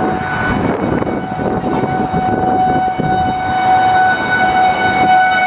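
Outdoor tornado warning siren sounding one steady tone that grows louder toward the end, over highway traffic noise.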